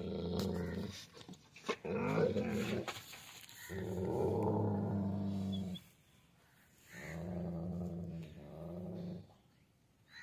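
Dog growling: a run of about five long, low growls, each one to two seconds long, with the longest about four seconds in.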